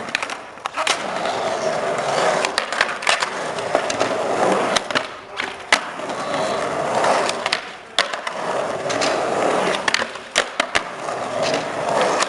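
Skateboard wheels rolling over concrete in a steady roar that swells and fades, broken again and again by sharp clacks of the board striking the ground.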